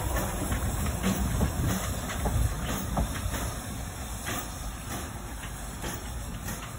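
Narrow-gauge steam locomotive 'Gelert' running past and away over the points, its wheels clattering on the rails and steam escaping. The sound fades slowly as it moves off.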